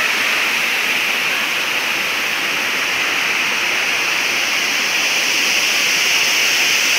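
Steady rushing of falling water, an even roar with no breaks.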